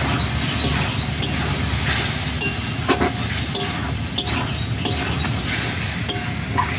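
A spice paste and tomato frying in oil in a pan, sizzling steadily while being fried down, as a metal spoon stirs and scrapes, clinking against the pan about once a second.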